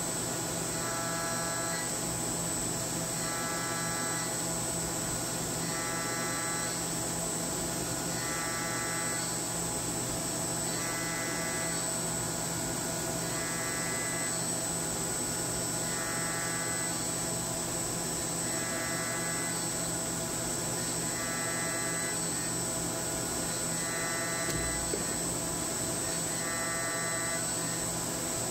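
SYIL X7 CNC mill spindle turning a quarter-inch four-flute ball end mill at 10,000 RPM through a 3D ramp cut, giving a steady machine whine. A higher cutting tone comes and goes about every two and a half seconds as the tool takes each pass.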